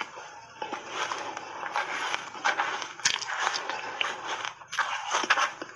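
Close-up chewing of a mouthful of soft refrozen shaved ice: continuous crackling crunches with many sharp cracks, and a short break about four and a half seconds in.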